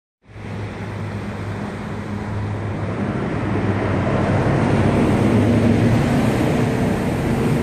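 Sea waves surging and breaking, with wind buffeting the microphone. A low steady hum runs underneath, and the wash swells louder towards the middle.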